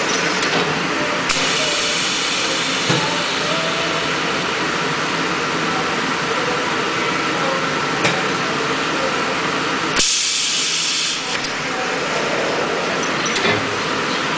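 High-frequency plastic cutting and welding press running through a press cycle: a steady machine hum with a hiss of air, a few sharp clicks, and a loud burst of hiss about ten seconds in that lasts about a second.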